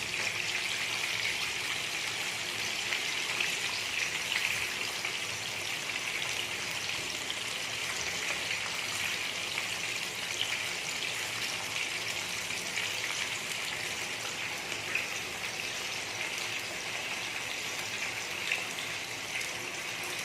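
Flour-coated chicken pieces deep-frying in hot ghee: a steady sizzle with small scattered crackles.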